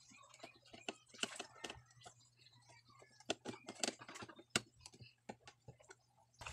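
Faint, irregular clicks and taps of hands handling wires and the plastic housing and circuit board of a Bluetooth speaker, over a low steady hum.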